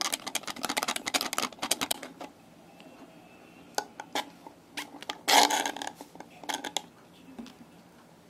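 Plastic handling noise from a blended drink's clear plastic cup, domed lid and straw: a quick run of sharp clicks and rubbing for the first two seconds, scattered clicks after, and a louder rustle a little past the middle.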